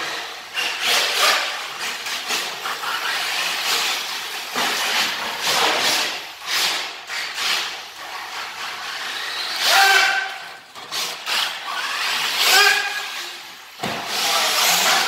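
RC car running in bursts: a rush of noise that swells and fades over and over, with two short pitched whines in the second half.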